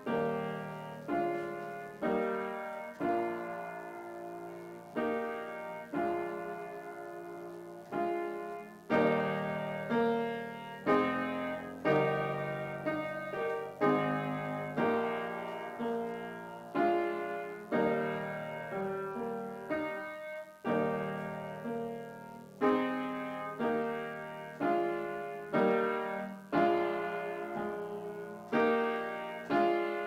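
Upright piano played solo: slow chords struck about once a second, each ringing out and fading before the next.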